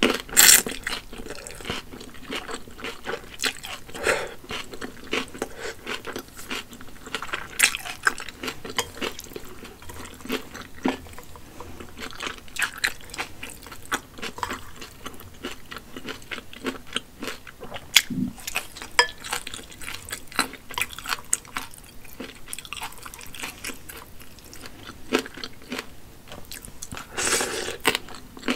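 Close-miked eating of wide hand-pulled noodles: a slurp as a noodle is drawn in at the start and another near the end, with wet chewing clicks in between.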